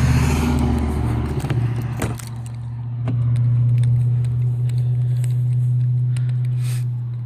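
A vehicle engine drones steadily and low, fading out near the end. Over it, the rear door of a Chevrolet Silverado crew-cab pickup is opened, its latch giving a couple of sharp clicks about two and three seconds in.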